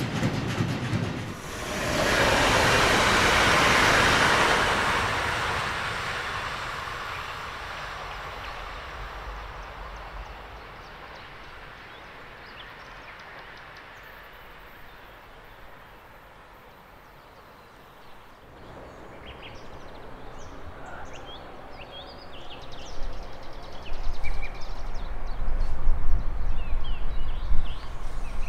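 A train passing, its rumble swelling about two seconds in and then slowly fading away. Later, birds chirp while a low rumble builds near the end.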